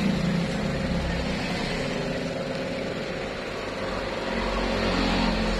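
Steady mechanical hum and hiss of a running motor in the background, with a low rumble that swells slightly near the start and again near the end.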